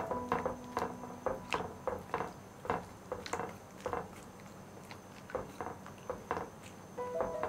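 Wooden chopsticks stirring noodles in a pan of simmering soy-milk soup: irregular soft clicks, taps and wet pops, bunched near the start and again after the middle, with a quieter gap between.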